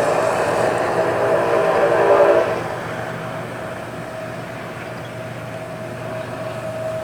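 Intermodal freight train passing, its locomotive horn sounding a multi-note chord that cuts off about two and a half seconds in. After that the train keeps rolling by more quietly, with one steady tone over the noise of the train.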